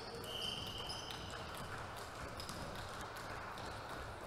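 A volleyball being bounced on a wooden gym floor before a serve: faint taps over the hall's background noise, with a few brief high squeaks.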